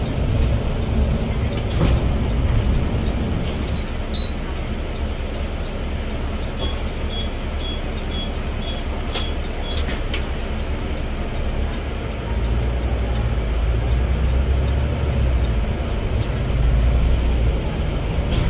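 Bus running along the road, heard from inside its cabin: a steady low rumble of engine and road noise that grows louder about two-thirds of the way in. A few faint, evenly spaced ticks come in around the middle.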